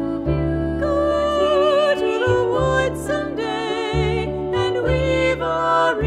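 Three female voices singing in harmony with vibrato, accompanied by piano and a double bass playing long low notes.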